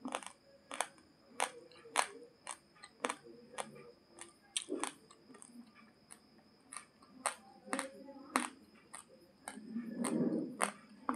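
Dry, uncooked basmati rice grains being crunched between the teeth: sharp, irregular cracks, about one or two a second.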